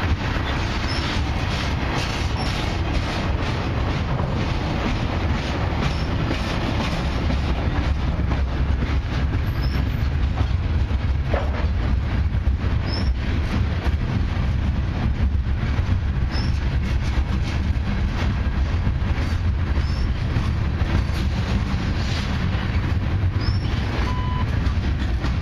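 Freight cars of a long mixed freight train rolling past close by, loaded centerbeam lumber flatcars, gondolas and tank cars: a steady rumble of steel wheels on rail with frequent wheel clicks.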